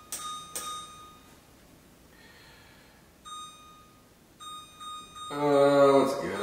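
Electronic oven control panel beeping as its buttons are pressed to set the temperature: two short beeps in the first second, then a faint steady tone. Near the end comes a louder, drawn-out male voice.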